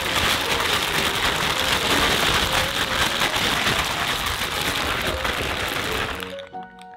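Zipper-lock plastic bag of cut sweet potato sticks, tossed with oil and seasoning, being shaken hard: a continuous crinkling, rattling rush of plastic and tumbling sticks that stops about six seconds in.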